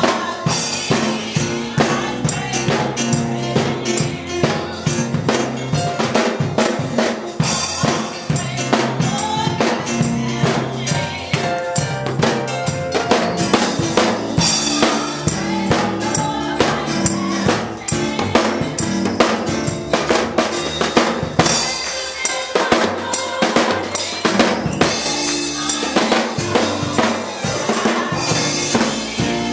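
Live gospel music in which a drum kit plays a steady beat, with kick, snare and rimshots prominent, over sustained organ chords.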